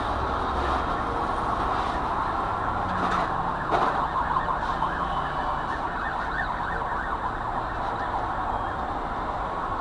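Steady noise of highway traffic going past, with a sharp knock nearly four seconds in.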